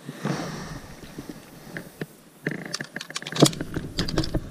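Small clicks and rattles of a pistol being handled in the hands, with one sharper click late on.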